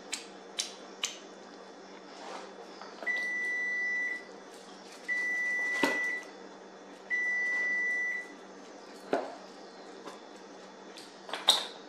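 A kitchen appliance's electronic timer sounds three long, steady, high beeps about a second apart. Around them, a stainless pizza wheel cuts through the pizza crust on a wooden board with a few sharp knocks and clicks, the loudest near the end.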